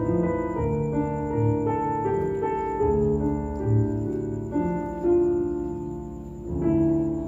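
Piano sound from a stage keyboard playing slow chords over low bass notes, with no singing.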